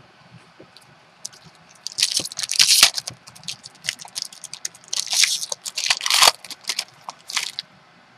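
Trading cards and their packaging being handled by hand, rustling and crinkling in several short bursts that begin about two seconds in and stop shortly before the end.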